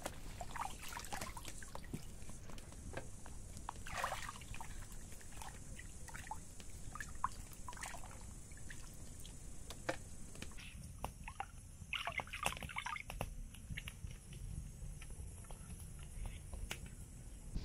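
Water sloshing, splashing and dripping in a plastic basin as pieces of raw lamb are rubbed and rinsed by hand, with irregular splashes and a busier burst of splashing about twelve seconds in, over a steady high-pitched hiss.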